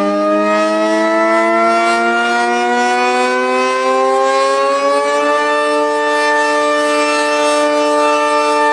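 Tornado warning siren winding up, its pitch climbing slowly for about five seconds and then holding a steady tone.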